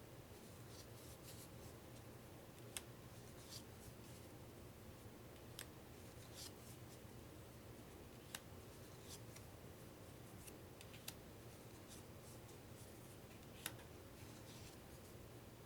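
Linen-finish playing cards being handled and laid down on a table one by one: faint, irregular snaps and taps over quiet room tone, with the sharpest ones about three, eight and fourteen seconds in.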